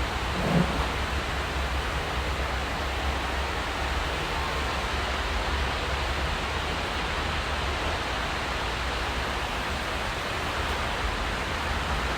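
Steady hiss of rain falling, an even noise with a low rumble beneath it.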